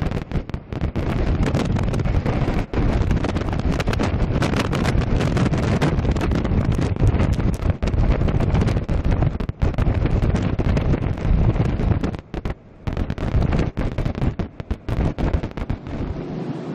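Storm wind buffeting the microphone: loud rushing noise, strongest in the low range, broken by frequent sudden dropouts.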